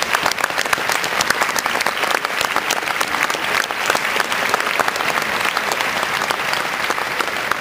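Audience applauding: a steady patter of many separate hand claps, just after the program's waltz music has stopped.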